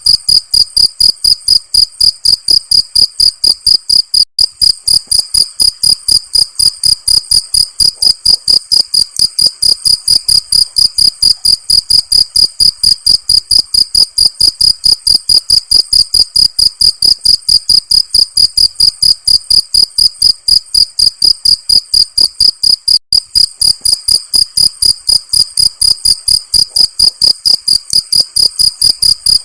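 Cricket chirping in a fast, even rhythm of sharp, high-pitched chirps, about four to five a second, with two brief breaks in the rhythm.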